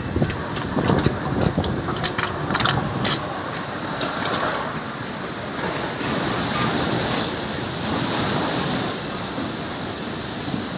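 Carrot washing machine running: a steady rush of water, with a quick run of knocks from produce or machine parts in the first three seconds.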